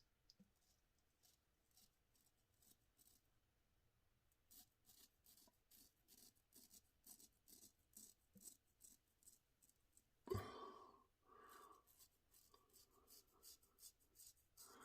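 Very faint scraping strokes of a Wade & Butcher 7/8 near-wedge straight razor cutting through lather and stubble, short strokes coming about one to two a second. A brief louder rush of noise comes about ten seconds in.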